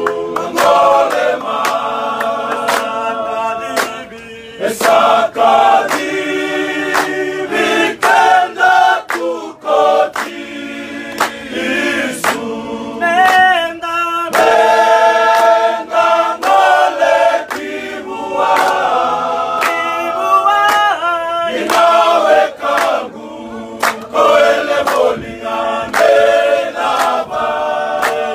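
A choir singing an unaccompanied Fijian song in harmony, with held chords that change every second or so. Sharp taps sound frequently through the singing.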